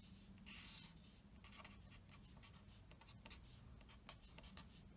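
Faint scratching of a ballpoint pen writing on paper, in short irregular strokes.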